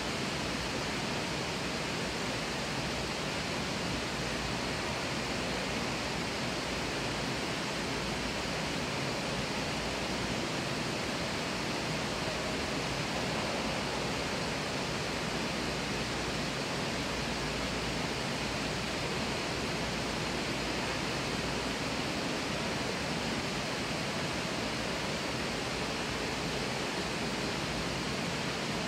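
Steady rushing and splashing of an indoor water feature, water running over rocks into a pool, heard as an even, unchanging hiss.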